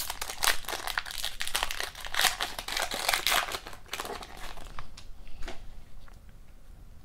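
A foil hockey card pack being torn open and crinkled by hand, the wrapper crackling for nearly five seconds, then a few faint ticks as the cards are taken out.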